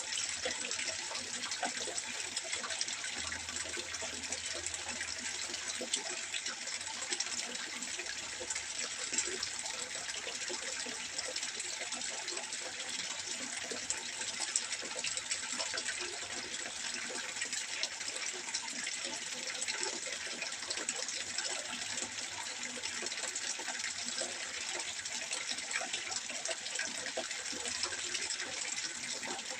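Water trickling and splashing steadily into a fish pond, an even, unbroken rush.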